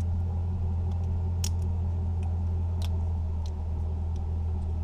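A steady low hum, with a few light clicks as hands work on parts in a car's engine bay.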